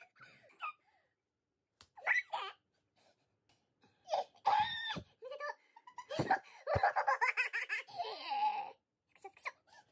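Excited shrieking and laughter in short bursts, then a long stretch of squealing laughter from about six to nearly nine seconds in: a joyful outburst of people celebrating good news.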